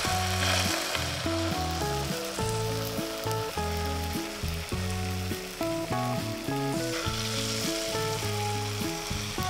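Beaten egg and spinach sizzling as they are poured into hot butter in a frying pan, a steady crackling hiss that swells about seven seconds in as the second pour hits the pan. Background music with a run of held notes plays over it.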